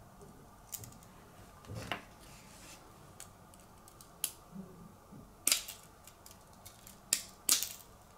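Sharp metal clicks of two pairs of jewelry pliers gripping and twisting a metal jump ring. About half a dozen separate clicks, the loudest about five and a half and seven and a half seconds in.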